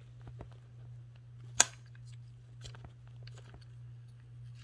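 Faint scattered plastic clicks and taps from handling and spinning a pink plastic Dimple fidget spinner, with one sharp click about a second and a half in, over a low steady hum.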